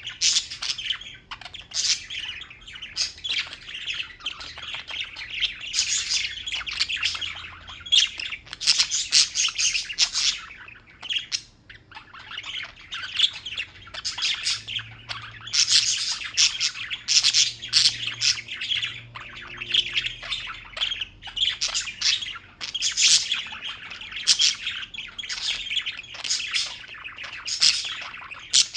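Small birds chirping and twittering continuously, many quick calls overlapping, with a brief lull a little before twelve seconds in.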